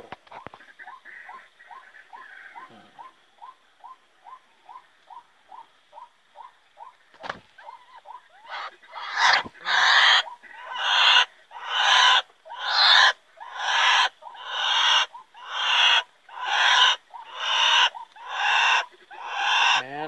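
Bird calls repeating in a steady rhythm: soft, short hooting notes about two and a half a second, then from about eight seconds in loud, harsh calls about one and a half a second.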